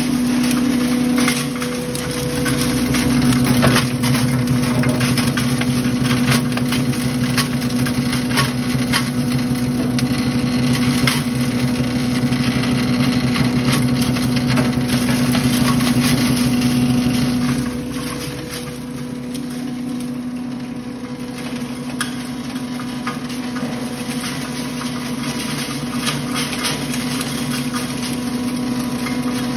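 Belt-driven poultry and cattle feed grinder, powered by an electric motor, running steadily with a constant hum and a busy crackle of material being ground. It gets a little quieter a little past the middle.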